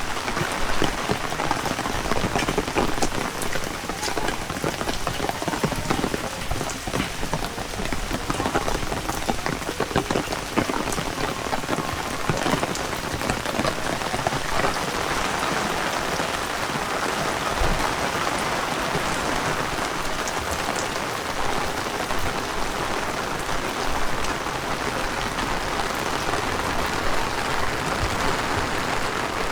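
Heavy rain falling steadily, with a dense patter of individual drops that is busiest in the first half.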